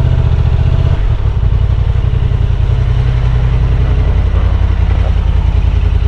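Honda Transalp 750's parallel-twin engine running at idle and low speed, its note changing about a second in.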